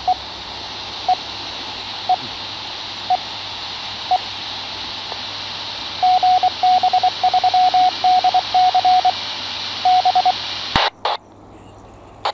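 GB3DC 2 m amateur repeater heard through a Yaesu FT-60 handheld's speaker mic: steady radio hiss with a short beep about once a second, then a Morse code ident in the same tone, after which the carrier drops with a click and the hiss cuts off near the end. The repeater answering shows that the homemade flowerpot antenna is getting into it.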